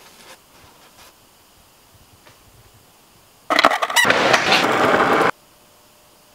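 Skateboard in a concrete bowl: a quick clatter of hard hits, then a loud scraping grind. It starts and stops abruptly, lasting just under two seconds.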